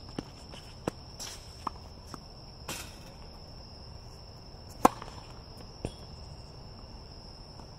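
Tennis strokes and bounces on an outdoor hard court: a few light knocks of ball and racket in the first two seconds, then a sharp racket strike on a serve about five seconds in and another, lighter hit about a second later. A steady high trill of crickets runs underneath.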